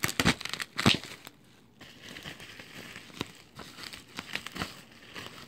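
Plastic bubble wrap crinkling and crackling as it is handled and pulled off a small boxed toy. There are two loud rustles in the first second, then softer scattered crackles.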